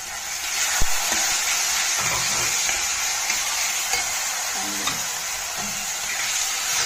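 Vegetable mixture sizzling in a stainless steel kadai while a metal spatula stirs and mashes boiled potato into it, with a sharp knock of the spatula on the pan about a second in and a few lighter scrapes after.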